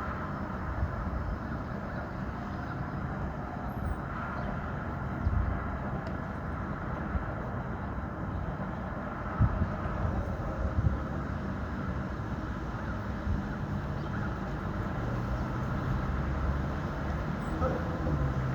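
City street ambience: a steady rumble of traffic with scattered knocks and clatters, and a vehicle engine's low hum growing louder near the end.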